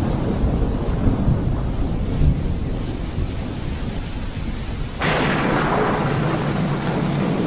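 Thunder rumbling and slowly fading, then a sudden sharp crack about five seconds in that rolls into a fresh low rumble, over steady rain.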